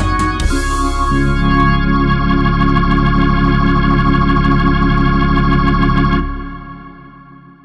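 Wersi Sonic OAX600 organ with a drawbar registration: a few short, sharply attacked chords, then one long held chord that is released about six seconds in and dies away over the next second and a half.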